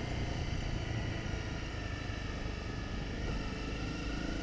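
Honda CRF250 Rally's single-cylinder engine running steadily as the bike cruises along a dirt track.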